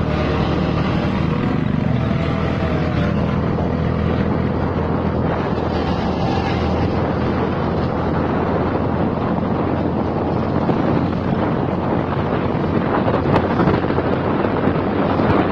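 Steady rumble of a bus engine and road noise, with wind buffeting the microphone.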